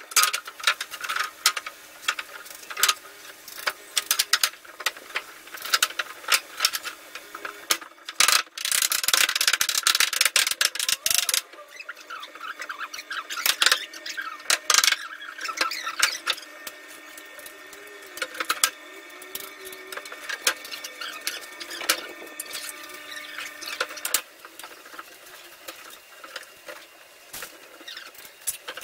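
Wooden floor boards knocking and clattering as they are handled and set down on a steel-joist mezzanine frame, with a sharp knock every second or so and a busier, noisier stretch about eight to eleven seconds in.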